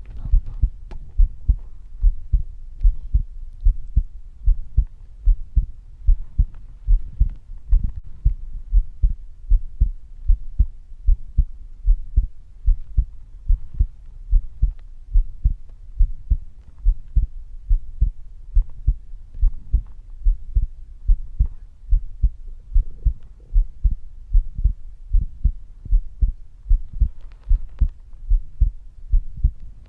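Human heartbeat: a steady, even rhythm of low thumps.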